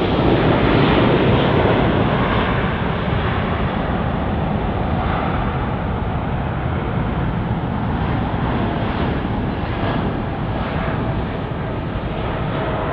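Boeing 787-9 Dreamliner's jet engines at takeoff thrust during the takeoff roll, a loud steady rush. It is loudest in the first couple of seconds as the aircraft passes, then slowly fades as it moves off down the runway.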